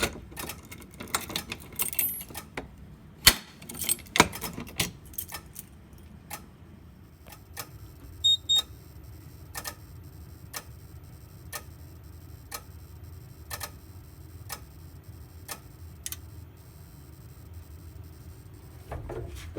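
Wheelock sync module clicking steadily about once a second as it pulses the flashing strobe, the alarm running on audible silence. Over the first few seconds, irregular rattling and knocks from the dual-action pull station being handled, and two short high beeps about eight seconds in.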